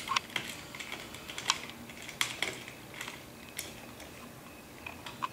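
Scattered small clicks and scrapes of a screwdriver tightening the screw of an end stopper on a curtain track.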